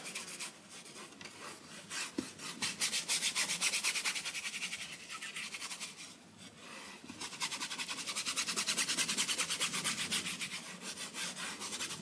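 Paintbrush scrubbing oil paint onto a canvas in quick back-and-forth strokes, several a second, a scratchy brushing in two spells with a brief pause in the middle.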